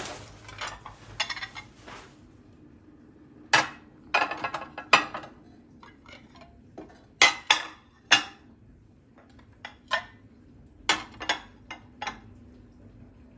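Dishes and cutlery being handled: irregular clinks and knocks, with a few louder clatters about a second apart, over a faint steady hum.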